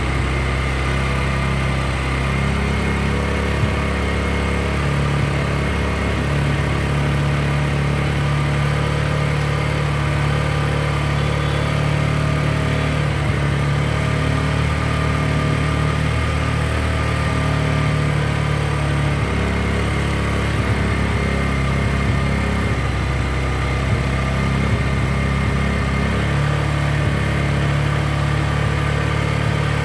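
TVS Apache RTR 160 4V single-cylinder engine idling steadily, freshly tappet-adjusted, while its fuel setting is being adjusted. Its note shifts slightly a few times.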